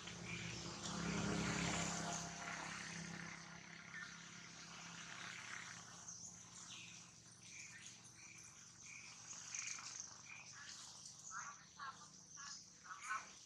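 A distant engine drones, loudest in the first two seconds and fading away by about the fourth, while a short high chirp repeats about every two-thirds of a second. A few brief, louder calls come near the end.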